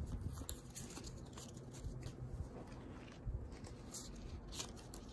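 Faint rustling and a few light taps of Pokémon trading cards being handled.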